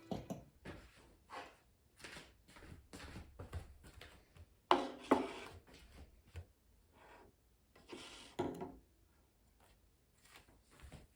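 A run of short, irregular rubbing and knocking handling noises, the loudest a pair about five seconds in and another pair about eight and a half seconds in.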